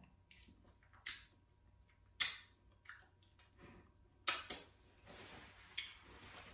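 Close-up eating sounds: wet lip smacks and mouth clicks while chewing, with a sharp smack a little past four seconds in as she licks her fingers. Near the end comes a steady rustle of a paper towel as she wipes her hands.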